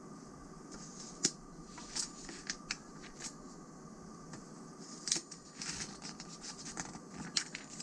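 Pages of a glossy magazine being turned and handled: quiet paper rustling with a scatter of crisp crackles and snaps as the sheets flex and flip.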